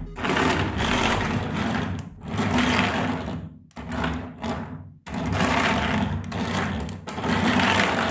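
Small electric motor of a remote-control toy whirring in repeated bursts of about one to two seconds, cutting back briefly between them.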